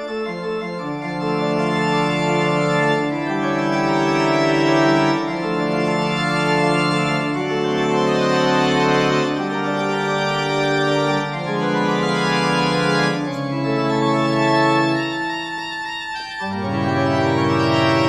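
Organ music: slow sustained chords that change every second or two, with a deep bass note entering near the end.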